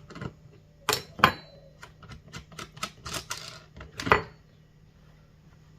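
Irregular clicks and knocks of a combination wrench and the chainsaw's plastic and metal parts being handled while the bar nuts are undone. There is a short rasping scrape about three seconds in, and the loudest knocks come about a second in and about four seconds in.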